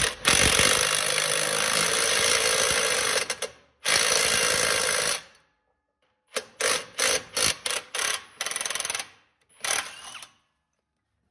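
Impact wrench hammering a lug nut down a new press-in wheel stud, drawing the stud through the wheel hub to seat it. Two long runs, about three seconds and then just over a second, followed by several short bursts.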